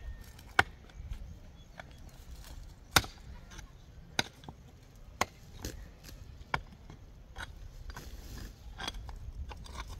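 A pickaxe striking hard, stony soil: sharp, irregular blows about a second apart, the two loudest in the first few seconds.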